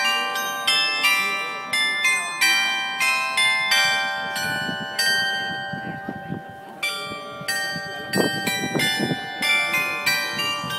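Tuned bronze bells of a public glockenspiel playing a melody, each struck note ringing on under the next. The notes thin out briefly around the middle before the tune carries on.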